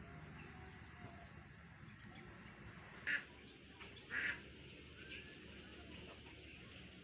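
Two short, harsh animal calls about a second apart, over faint steady background noise.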